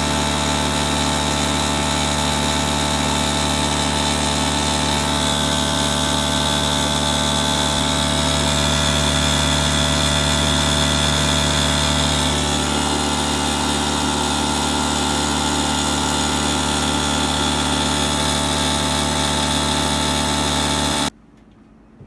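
Refrigerant recovery machine running: a loud, steady motor and compressor hum with fan hiss, which cuts off abruptly about a second before the end.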